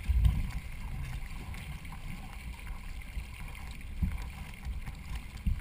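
Racing canoe under way, paddled, with water washing along the hull and a low, uneven rumble of wind and motion on the hull-mounted camera.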